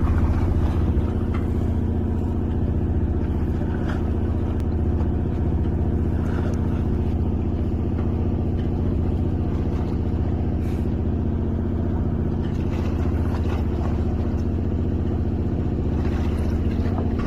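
Fishing boat's engine running steadily at a constant pitch, a low even hum with a few faint clicks.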